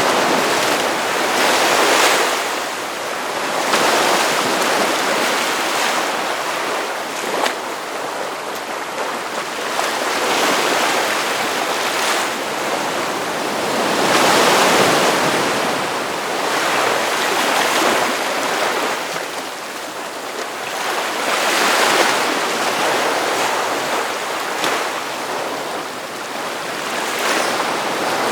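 Ocean waves breaking on a beach: continuous surf with a wash that swells and falls back as each wave breaks every few seconds.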